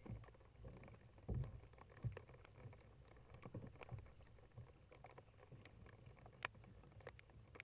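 Kayak paddling on calm water: faint irregular paddle splashes and drips with scattered small clicks, and two dull low thumps about a second and a half and two seconds in.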